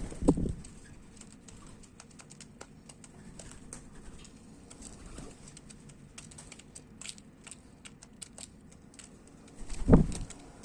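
Birds pecking at seed: a scattered, irregular tapping of small clicks, with a low thump just after the start and another near the end.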